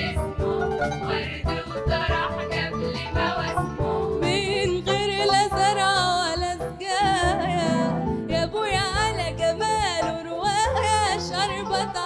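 A live Egyptian song with plucked strings and hand percussion. From about four seconds in, a female lead singer comes in over them with a long, ornamented, wavering melodic line.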